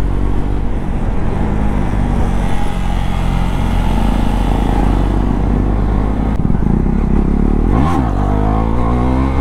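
KTM Duke 390's single-cylinder engine through an aftermarket Akrapovič exhaust, heard from the rider's seat while under way. The engine note holds fairly steady, then about eight seconds in the pitch drops sharply and climbs straight back, rising again after as the bike pulls onto the bridge.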